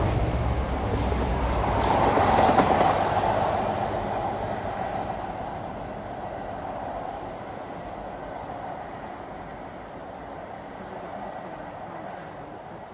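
A train running through the station, its wheels clicking over rail joints a few times in the first two seconds, then the rumble dying away steadily as it draws off into the distance.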